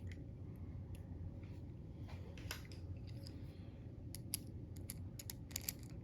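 Scattered faint clicks and light taps of small metal padlock parts and tools being handled, with a cluster of quick clicks near the end.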